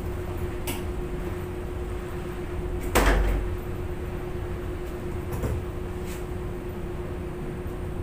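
The heavy door of a large industrial front-loading washer is unlatched and pulled open with one loud clunk about three seconds in. A few lighter knocks follow, over a steady hum of laundry-room machinery.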